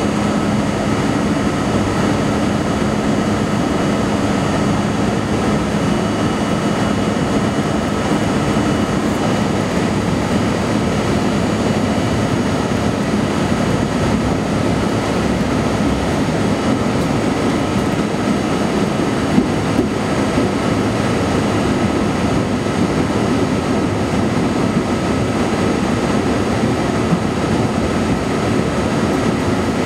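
Budd R32 subway train running on elevated track, heard from inside the front car: a steady rumble of wheels on rails with a few steady tones over it, and one sharper click about two-thirds of the way through.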